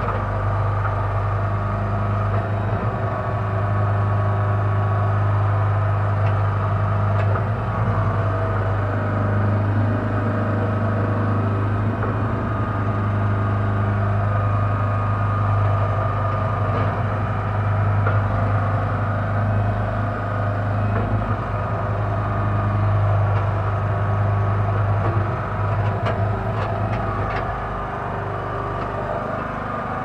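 Towable backhoe's engine running steadily while the hydraulic boom and bucket dig, its low drone rising and falling a little with the load. A few sharp clicks or knocks come near the end.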